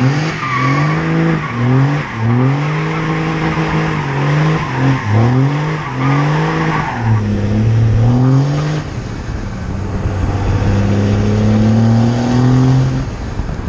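Cummins turbo-diesel pickup engine under hard acceleration, its pitch surging up and dropping back over and over as the tyres slip and bite, then pulling in one longer, steadier climb near the end.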